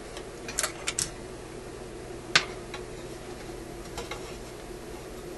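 Small sharp clicks and taps of parts being handled on a metal tube-radio chassis: a few light clicks about half a second to a second in, one sharper click a little past two seconds, and a faint one near four seconds, over a steady low hum.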